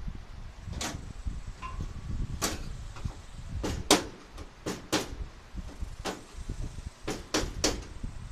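About a dozen sharp, irregular knocks and clacks as the grille of a 1976 Chevy Blazer is pushed, knocked and fitted against the truck's front end, the loudest about four seconds in, over a steady low rumble.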